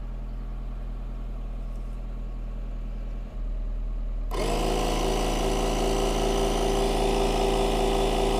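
A car engine idles with a low hum. About four seconds in, a 12-volt TUSA portable digital tyre inflator switches on and runs steadily, louder than the engine, pumping air into an under-inflated tyre.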